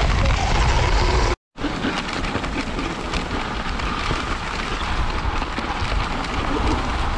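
A moving dog sled: a steady hiss of the runners over snow with wind rumbling on the microphone. The sound drops out to dead silence for a split second about a second and a half in, and the hiss is lighter after it.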